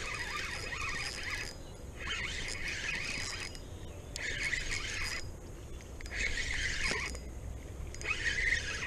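Spinning reel being cranked to wind in line that is wrapped up in weeds. Its gears whir in about five spells of a second or so, with short pauses between turns.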